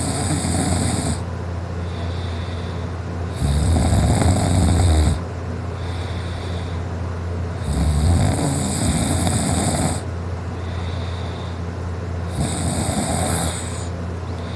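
A man snoring loudly in his sleep while lying on his back: four rough snores, one about every four seconds, over a steady low hum.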